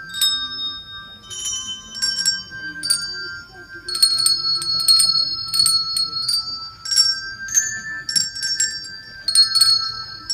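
Small handbells rung one at a time by a children's bell choir, each child's bell sounding its own note in turn so that a simple tune builds up. The strikes come at uneven spacing, some close together and some after short pauses, each leaving a clear ringing tone.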